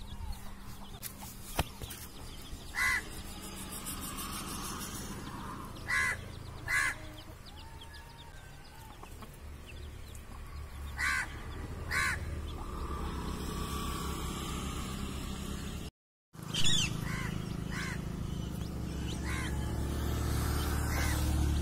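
Short, harsh bird calls, one at a time or in quick pairs, every few seconds, like crows cawing.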